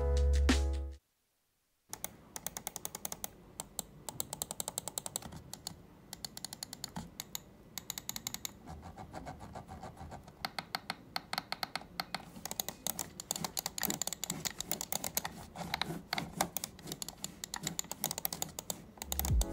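Button clicks of an MCHOSE A5 wireless gaming mouse with blue-transparent micro switches, pressed in quick runs of many clicks with short pauses between.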